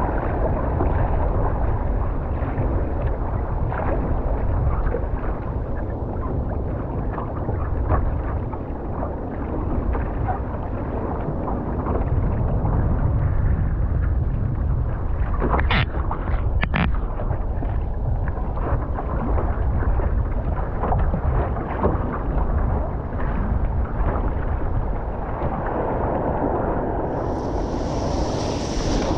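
Wind buffeting the microphone of a camera mounted on a one-person outrigger canoe, over water sloshing against the hull. A few sharp clicks come about halfway through, and a brief high hiss near the end.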